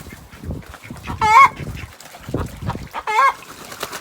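A hen giving loud, wavering squawks, two of them about two seconds apart, with softer low clucks in between. The owner takes it for the 'chicken song', the egg song a hen gives after laying.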